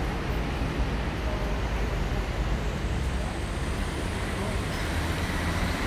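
City street traffic ambience: a steady wash of road traffic with a continuous low engine rumble.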